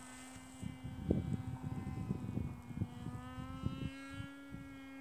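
Electric propeller motor of a HELICEO Foxy Slim fixed-wing VTOL drone in cruise flight, a steady distant drone whose pitch drifts slightly, with low gusty rumbling over it.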